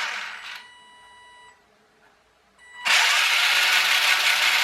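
The RC car's original electric motor and gear drive spinning the wheels in the air: a run that winds down in the first half second, then a second run starting about three seconds in. A faint steady high whine is left between the runs.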